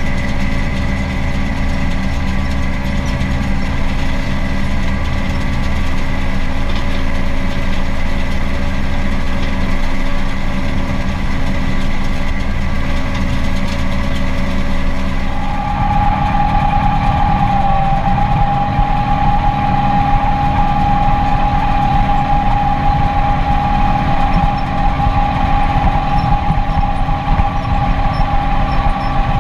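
Case IH 4240 Pro tractor's diesel engine running steadily while it pulls an Orkel round baler, heard from inside the cab. About halfway through the sound switches to the engine heard by the exhaust stack: slightly louder and rougher, with a steady high whine.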